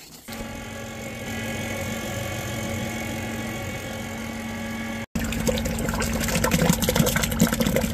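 Engine of a grout mixer running steadily while its paddle churns bentonite-cement grout. After a cut about five seconds in, the engine runs on louder with rougher, splashy liquid noise over it.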